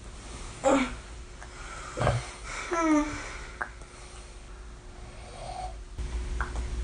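Tongue and mouth clicks from a sleeping person, mixed with a few short sleep noises, one a brief falling voice sound about three seconds in.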